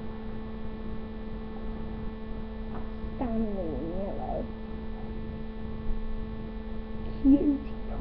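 Steady electrical hum, with a brief gliding voice-like sound about three seconds in and a short louder sound near the end.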